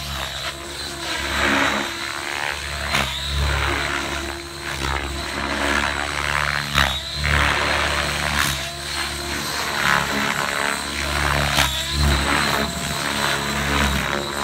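Radio-controlled helicopter flying aerobatics: its rotor noise swells and fades over and over, over a steady high whine.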